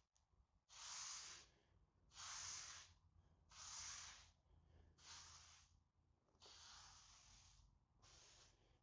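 Purple trans dye being applied to wood in repeated strokes: a soft hiss with each stroke, about one every second and a bit, with a longer stroke near the end.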